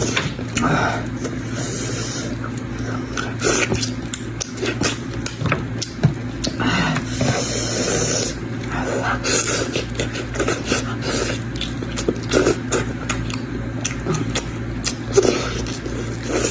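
Close-miked eating sounds of a person chewing spicy goat belly: irregular wet clicks and smacks, with two longer hissing slurps, one about 2 s in and one about 7 s in, over a steady low hum.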